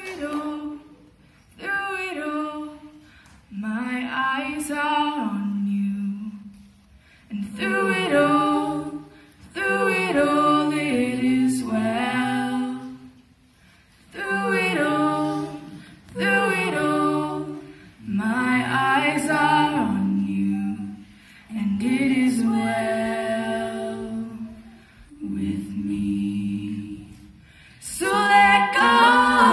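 A four-voice a cappella group of mixed male and female singers, singing in harmony into handheld microphones with no instruments. The singing comes in short phrases with brief pauses between them.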